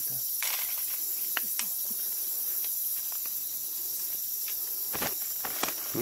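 Night chorus of insects such as crickets and katydids, trilling steadily in several high-pitched bands, with a few scattered sharp clicks.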